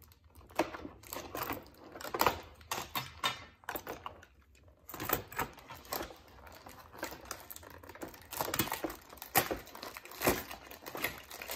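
Plastic toy packaging being handled and opened: an irregular run of sharp clicks, taps and crinkles from the plastic tray and cellophane wrap, with a short pause about four seconds in.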